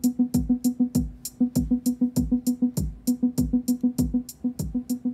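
Modular synth beat from an ER301 sound computer sequenced by a monome Teletype and grid: a kick drum whose pitch falls on each hit and a ticking hi-hat play from Euclidean trigger sequencers. A plucky synth note comes in right at the start and repeats on one pitch in quick, even sixteenths as the note sequencer's voice is unmuted.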